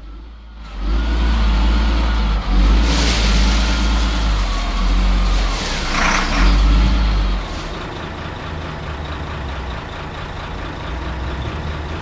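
Heavy engines of a front-end loader and a dump truck running loud and revving, with a wavering whine over the rumble, while sand pours from the loader's bucket into the truck's steel bed with a rushing hiss about six seconds in. After about seven and a half seconds the engines settle to a quieter steady running.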